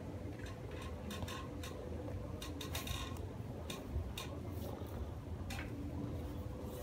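A brown paper bag crinkling in irregular clicks and rustles as a hand reaches into it where a cat is lying, over a faint steady hum.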